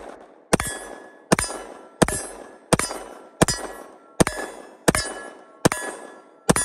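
Glock 20 Gen 4 10mm Auto pistol fired in steady rapid succession, nine shots about 0.7 seconds apart. Each shot is followed by the ringing clang of a struck steel target.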